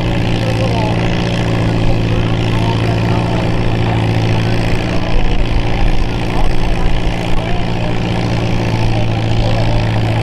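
Small vintage Farmall farm tractor's engine running steadily at an even, low pitch as it pulls a weight-transfer sled at walking pace, with slight rises and dips in loudness partway through.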